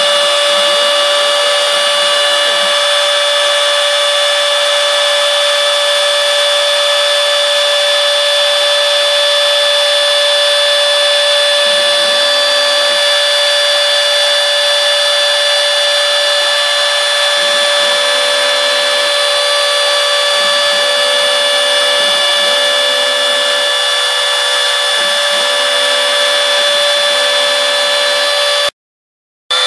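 Router spindle of a CNC mill running at a steady high whine while cutting florist foam, with a lower tone coming and going as the machine moves. The sound cuts out briefly near the end.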